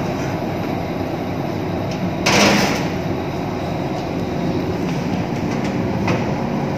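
A metal baking tray is handled at a countertop electric oven: a short, loud scraping rasp about two seconds in and a light knock of the oven door closing near the end. A steady rush of background noise runs underneath.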